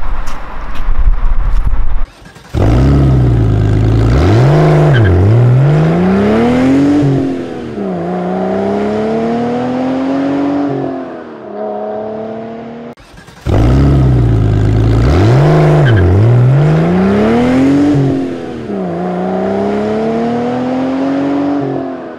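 A car engine accelerating hard through the gears: the revs climb and drop back at each of three gear changes, then settle. The whole run plays twice in a row, after a couple of seconds of low rumbling noise at the start.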